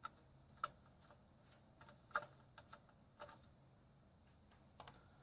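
Faint, irregular clicks of a screwdriver and small screws being worked loose, with the metal parts handled between them. There are about eight clicks spread unevenly, the loudest about two seconds in.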